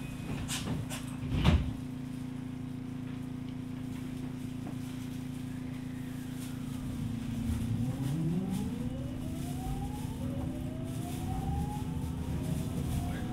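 Aboard a JR West 207 series electric train: a few knocks and a loud clunk over a steady hum. Then, about seven seconds in, the VVVF traction inverter starts whining as the train pulls away: several tones rise together in pitch and jump to a fresh set of rising tones twice as it gains speed.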